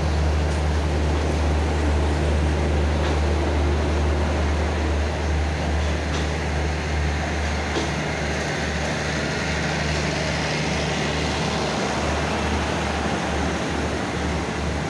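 Passenger train's diesel engine running at a steady low drone beside the platform, with a few faint clicks.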